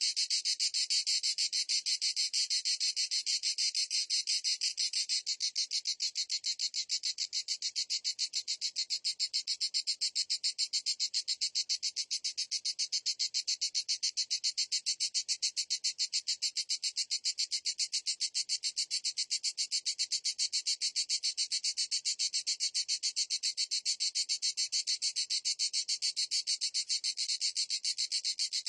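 Cicada calling continuously: a high, rapid, evenly pulsed buzz that holds steady without a break.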